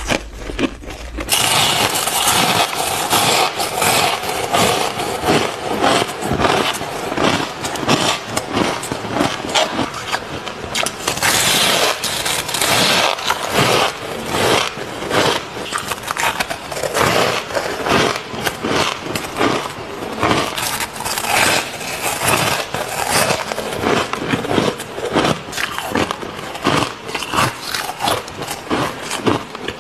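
Close-up biting and chewing of balls of packed shaved ice, a continuous run of crisp, irregular crunches.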